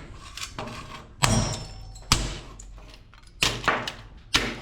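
Heavy blows striking an LED retrofit lamp's metal housing as it is broken apart for scrap: about five thuds at uneven intervals, the first big one followed by a brief metallic ring.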